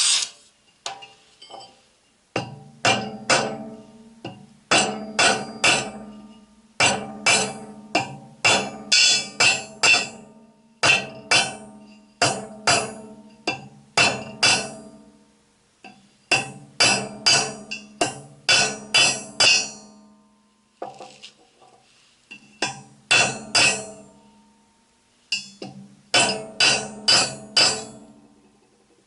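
Hammer striking a small steel workpiece in quick runs of several ringing blows with short pauses between runs, shaping a homemade gas-cylinder key.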